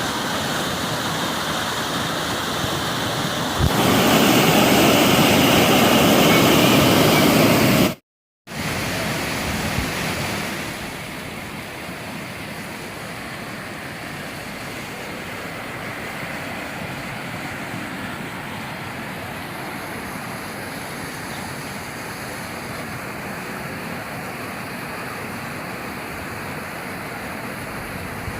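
A steady rush of running rainwater. It is louder for a few seconds, cuts out briefly about eight seconds in, then comes back quieter and even.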